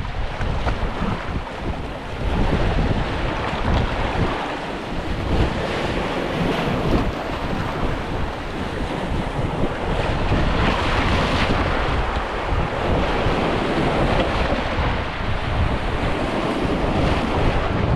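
Wind buffeting the microphone in uneven gusts, over a steady wash of sea waves.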